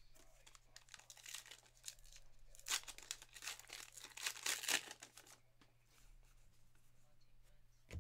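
A Topps Archives baseball card pack's wrapper being torn open and crinkled by hand: a run of crackly rustles, loudest around the middle, dying away about five seconds in.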